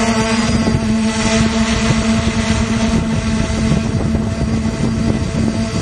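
Quadcopter drone's motors and propellers humming steadily in flight, picked up by the camera mounted on the drone, with wind buffeting the microphone. The hum is partly masked by wind rumble in the middle and comes back clearly near the end.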